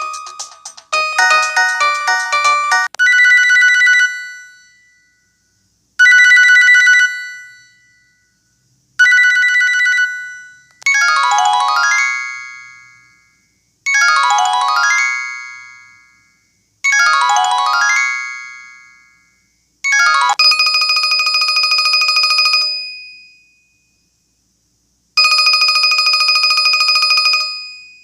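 Built-in electronic ringtones and alert tones of an LG 630 (PD6335) mobile phone, played one after another with short silences between: a quick melody, three two-note chimes, three quick descending runs, then two long bursts of a steady telephone-style ring.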